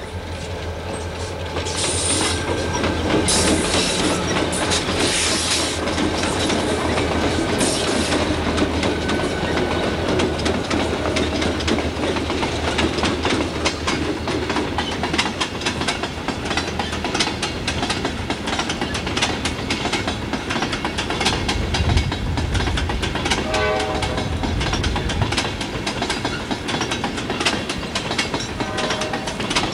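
Four SD40-2 diesel locomotives with EMD two-stroke V16 engines run past, followed by a long string of empty hopper cars rolling by with a steady clickety-clack of wheels over the rail joints. Two brief pitched notes sound in the second half.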